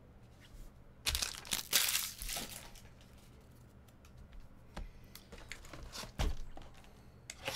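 Plastic trading-card packaging crinkling as it is handled: a cluster of rustling about a second in, then a few short rustles and taps.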